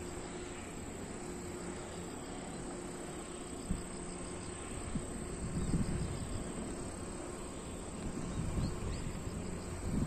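Grass insects trilling steadily at a high pitch over the low rumble of mountain wind and large wind turbines turning, with the rumble swelling in gusts about halfway through and again near the end.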